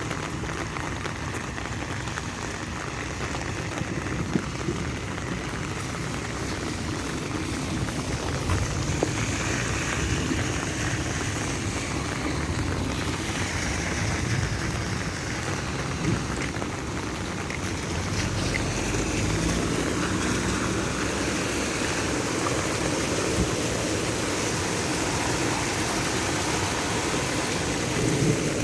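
Steady rain falling and pattering on surfaces, with a few sharp ticks of single drops.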